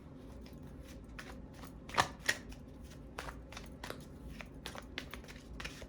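Tarot cards being shuffled and handled: a run of quick, light card clicks and flicks, with two louder snaps about two seconds in.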